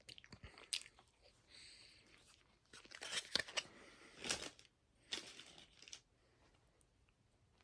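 Faint rustling and crinkling with scattered small clicks, in short bursts that are loudest about three to four and a half seconds in and stop about six seconds in.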